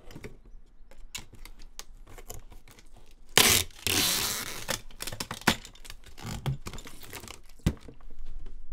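Packing tape ripping off a handheld tape gun as it is drawn across a cardboard box: one long loud rip about three and a half seconds in and a shorter one near seven seconds, with clicks and taps of the dispenser and hands on the cardboard between them.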